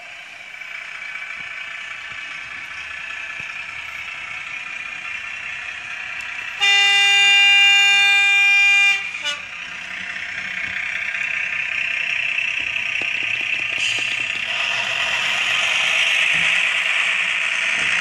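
Heljan model AC Railbus's DCC sound decoder playing diesel railbus engine sound through its small on-board speaker as the model runs. About seven seconds in, one horn blast lasting a little over two seconds; afterwards the engine sound grows louder.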